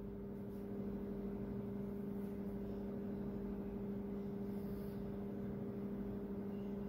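Steady low electrical hum made of two unchanging tones, one an octave above the other, from a motor or mains-powered appliance.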